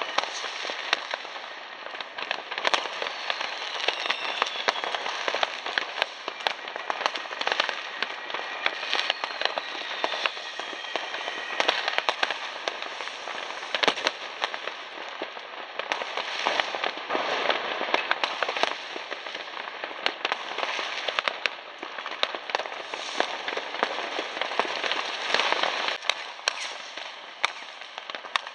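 Many fireworks and firecrackers going off at once: a dense, unbroken crackle of bangs and pops, with a few falling whistles from rockets.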